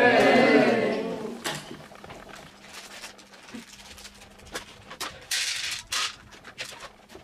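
Voices calling out loudly for about a second at the start, then the crinkle and rustle of a plastic sweets packet being opened, and small sweets rattling as they are poured out onto plastic plates about five to six seconds in, among scattered clicks.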